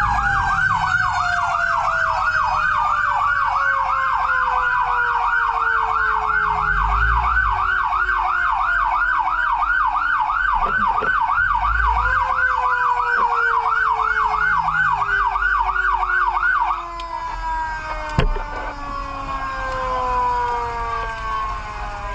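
Emergency-vehicle sirens: an electronic siren yelping rapidly, about three warbles a second, which cuts off abruptly about three-quarters of the way through. Under it a siren wail slides slowly down in pitch, rises briefly partway through, then keeps falling. Engine rumble runs underneath.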